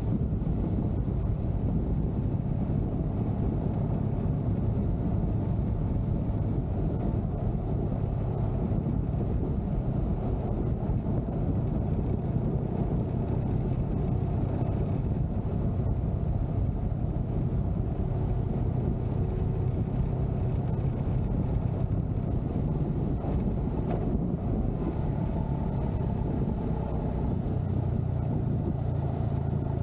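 BMW R1200C motorcycle's boxer twin running steadily at a cruise, heard as an even, low rumble mixed with wind and road noise on the camera's microphone.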